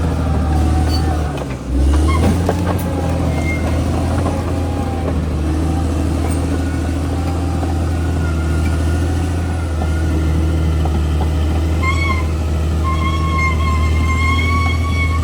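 Crawler bulldozer's diesel engine running steadily at work, with a brief dip and pick-up about a second and a half in.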